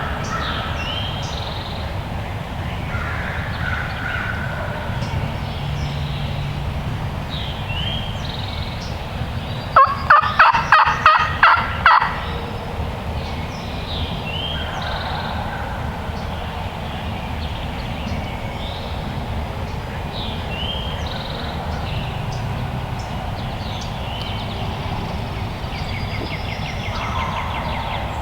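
Wild turkey gobbling once, about ten seconds in: a loud, rapid rattling burst of seven or eight pulses lasting about two seconds. Songbirds sing throughout over a steady background hiss.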